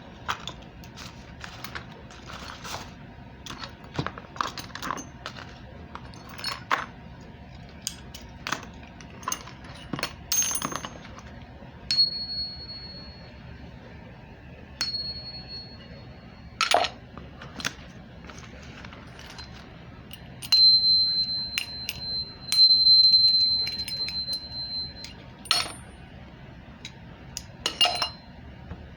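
Small hard parts clicking and clinking as they are handled, in scattered single knocks. A thin, high, steady tone sounds three times in the middle, the last time for several seconds.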